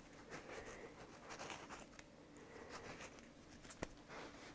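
A cloth rag rubbing and wiping a metal rotary-table part makes a faint, scratchy rustling. A single sharp click comes a little before the end.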